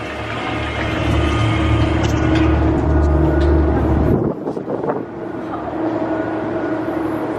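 Steady machinery drone and deep rumble on a ferry's enclosed vehicle deck, with a few held tones running through it. A little over four seconds in, the rumble drops away suddenly, then a lighter hum carries on.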